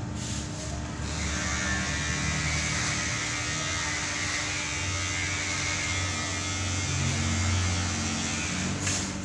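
Electric hair clippers running with a steady buzz while cutting hair, a little louder from about a second in.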